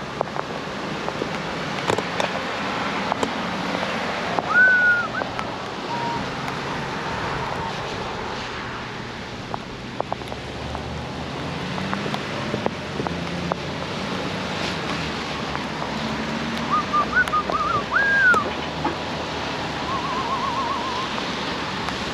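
Steady rush of wind and tyre noise from an e-bike riding a wet trail in the rain. A few short whistled chirps sound about four seconds in and again near the end, followed by a brief warbling trill.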